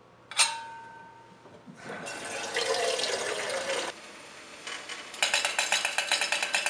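A sharp metallic clink, then water running from a kitchen faucet into a kettle for about two seconds, its pitch rising as the kettle fills. The water stops, and about five seconds in a rapid, irregular crackle of small clicks begins.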